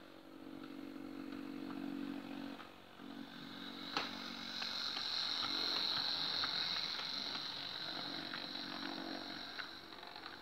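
Model Class 08 shunter locomotive running with its coaches on toy sectional track: a small electric motor hums and whirs, and the wheels click over the rail joints. One sharp click comes about four seconds in, followed by a high steady whine as the train passes close.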